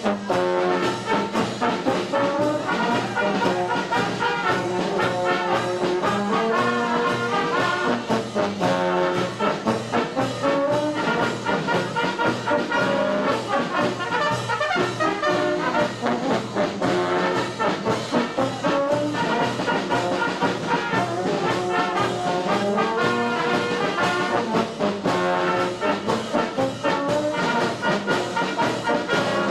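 Brass band playing outdoors, a melody on trumpets and trombones over a steady beat from bass drum and clashing hand cymbals.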